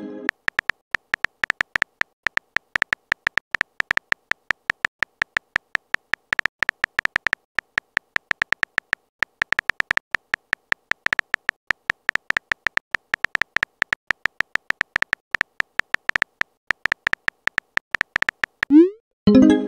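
Rapid, irregular taps of a simulated phone keyboard typing out a text message, each a short click with a bright ringing tone. Near the end a short rising tone and pop sounds as the message is sent.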